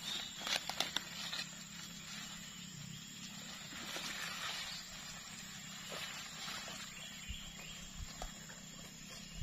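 Footsteps and the rustle of leaves and grass as a person pushes through dense forest undergrowth. There are a few sharp crackles of snapping twigs in the first second or so.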